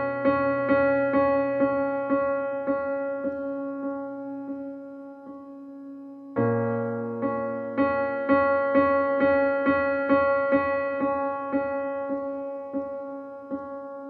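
Relaxing background music: a keyboard plays evenly repeated notes, about two or three a second, over held chords, and a new chord comes in about six seconds in.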